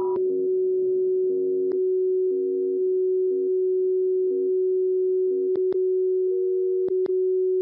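Steady 375 Hz beat tone of the WWV time-signal carrier received in CW mode on an Icom IC-7300 transceiver, with fainter tones above and below it coming and going. The hiss around the tone narrows in steps as the receive filter is tightened toward 50 Hz, and a few short clicks are heard near the end.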